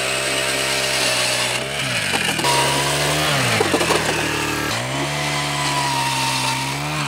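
Gas-powered ice auger running at high throttle as its spiral bit bores through pond ice; the engine pitch sags and picks back up a few times as it works.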